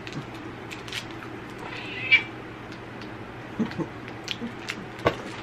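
A domestic cat meows once, a short high call about two seconds in, with scattered small clicks around it.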